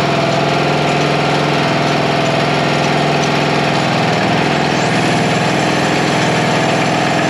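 A John Deere riding mower's engine running at a steady speed. It dips briefly about four seconds in, then settles. The machine is working properly after its deck rebuild.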